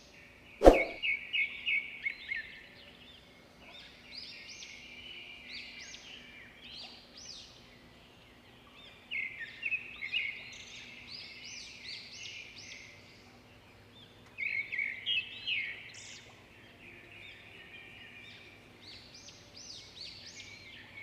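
Birds chirping in repeated bursts of rapid, high calls, with quieter chirping between the bursts. A single sharp click sounds about a second in.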